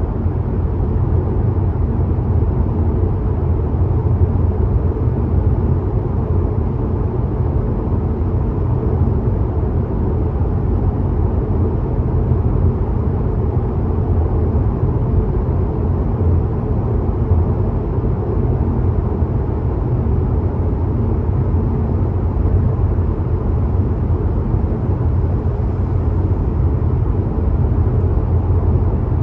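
Car travelling at steady motorway speed: an even, low road and tyre rumble that holds without change.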